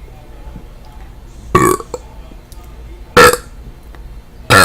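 A woman burping: three short, loud burps about a second and a half apart, the last right at the end.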